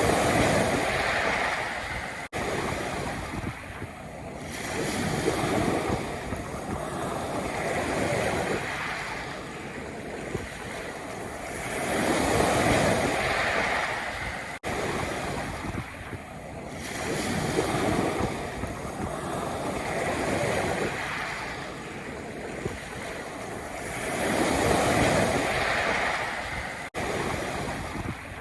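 Sea waves washing in and out over a pebble beach, the surf swelling and falling about every four seconds.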